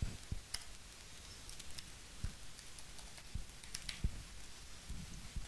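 Computer keyboard being typed on: scattered, irregular keystroke clicks.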